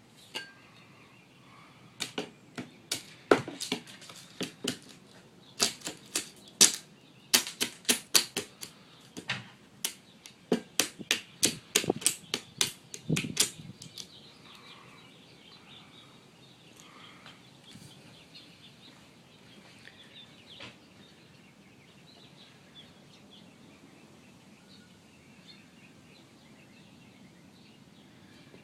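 A run of sharp, irregular knocks, two or three a second and some in quick pairs, as nails are driven into new wood during termite-damage fascia repair. After about 14 s the knocks stop and only faint background remains.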